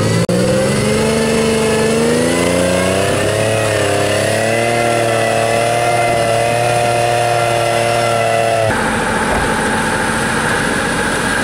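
Toyota 4x4 off-road truck on huge arched mud tyres accelerating hard, its engine climbing in pitch over the first few seconds, then held at high revs and wavering as it drives through mud. About three-quarters of the way through, the sound cuts abruptly to a steadier, lower engine noise from a Ural truck.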